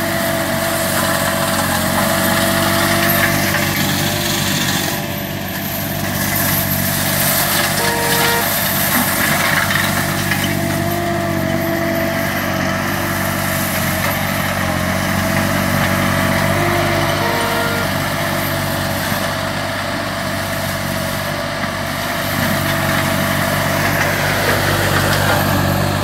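Green Climber LV600 remote-controlled tracked slope mower running steadily under load, its Kohler engine driving the forestry mulching head as it shreds heavy brush. The level dips slightly a few times as the load changes.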